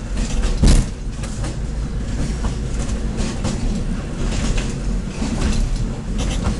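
Train running along the track, heard from inside: a steady low rumble of the wheels and running gear, with irregular clicks and knocks over the rails and one louder knock about a second in.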